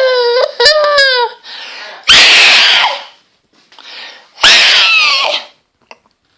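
A person screaming in loud, repeated shrieks: two long screams that fall in pitch at their ends, with shorter wavering cries between them.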